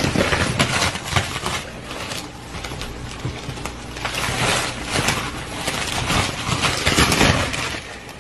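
Stretched plastic wrap crinkling and crackling irregularly as a dog pushes against it and through it.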